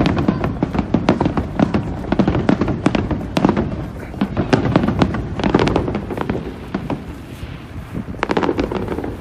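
Aerial fireworks shells bursting in rapid succession, a dense run of bangs and crackles. It thins out after about six seconds, then comes a last short flurry near the end.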